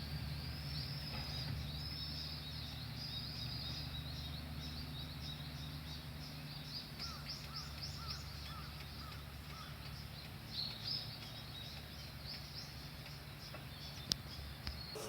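Small birds chirping again and again, with a quick run of chirps around the middle, over a steady low background rumble.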